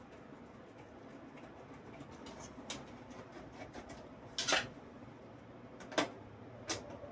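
Small metal parts being handled and tried in a PC case's motherboard tray: a few short clicks and taps of screws and standoffs against the case, the loudest a brief scrape about four and a half seconds in.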